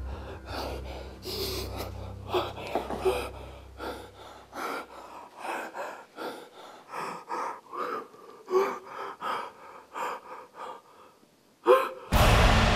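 A person gasping and panting in short, ragged breaths, one after another, with a low drone under the first few seconds. A sudden loud burst of sound cuts in near the end.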